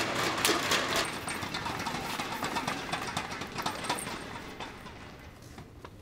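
Hands slapping in high-fives and claps among a small group, with voices in the background; the slaps come thick at first, then thin out and fade away.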